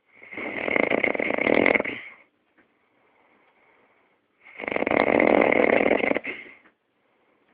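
A sleeping pet snoring: two long snores of about two seconds each, with a thin whistle through each and a faint breath between them.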